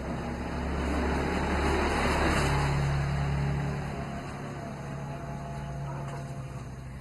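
A motor vehicle passing: its engine and road noise swell to a peak about two to three seconds in, then fall back to a steady low hum.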